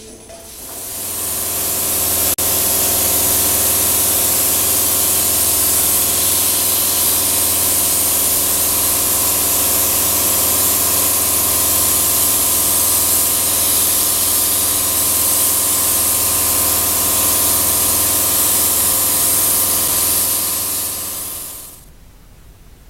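Compressed-air paint spray gun spraying with a steady loud hiss for about twenty seconds, building up in the first second and cutting off near the end, over a steady mechanical hum. There is a brief click about two seconds in.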